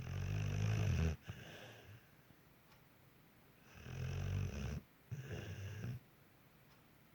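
Pit bull snoring in its sleep: two rasping snores about four seconds apart, each a loud drawn breath followed by a softer one.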